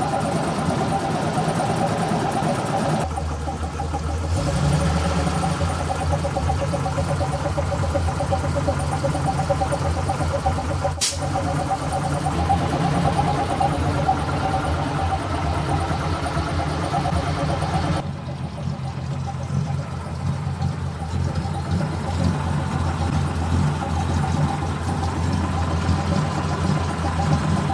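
Simca Unic Marmon Bocquet army truck's engine idling steadily, running quietly with its exhaust manifold gaskets freshly replaced. The sound gets deeper about three seconds in, with a single sharp click near the middle.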